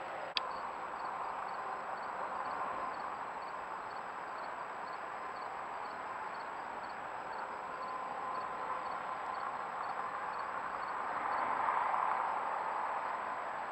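Steady night-time outdoor hiss with a faint insect chorus, a cricket-like chirp repeating evenly in the background. A single sharp click comes about half a second in.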